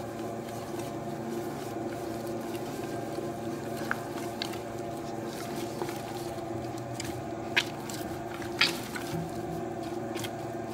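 Electric dough mixer running steadily at lowered speed, kneading soft, well-developed dough as olive oil is worked in, with a squishing of wet dough in the steel bowl. A few sharp knocks stand out, the loudest at about seven and a half and eight and a half seconds in.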